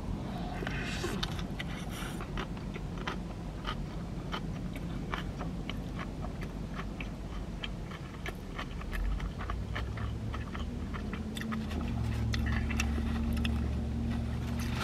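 Close-up chewing of a mouthful of cheeseburger, with many small wet mouth clicks. A low steady hum comes in about eleven seconds in.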